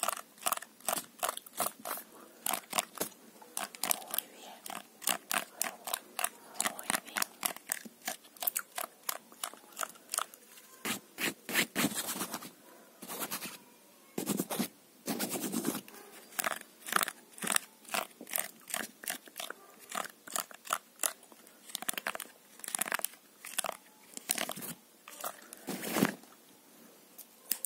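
Hair-cutting scissors snipping close to the microphone in quick, crisp strokes, two to three a second, with a couple of longer scraping rubs near the middle.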